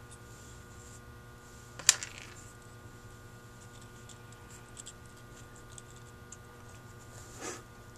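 Small carburetor parts handled in the fingers: light ticks and taps as the accelerator pump diaphragm and its plunger shaft are worked and checked, with one sharp click about two seconds in and a brief rustle near the end.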